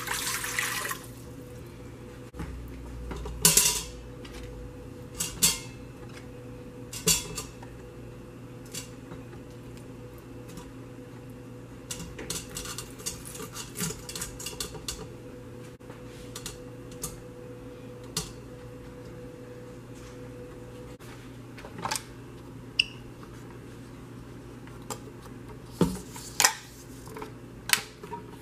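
Water pouring briefly into a stainless steel pressure-cooker inner pot, then scattered knocks and clinks as corn cobs are set down on the steel trivet inside it. A few louder knocks near the end as the pot's lid goes on.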